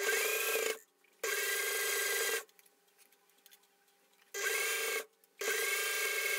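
Singer electric sewing machine stitching a seam in four short runs, each starting and stopping abruptly with a brief rising whine as the motor gets up to speed. There is a pause of about two seconds in the middle, and the last run carries on past the end.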